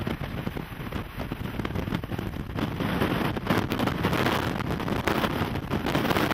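Strong wind from a nearby wedge tornado buffeting the microphone: a gusty rush of noise that grows louder about two and a half seconds in.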